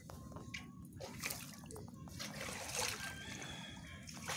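Pond water splashing and trickling lightly, with a couple of soft swishes about a second in and near three seconds.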